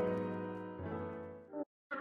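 Background music of slow, sustained keyboard chords, a new chord about a second in, fading down. The music cuts off abruptly near the end into a brief dead silence before another track begins.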